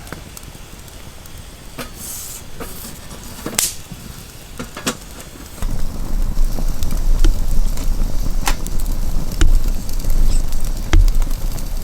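A few sharp clicks, then about six seconds in a camping gas burner catches and runs with a loud, uneven low rumble of flame.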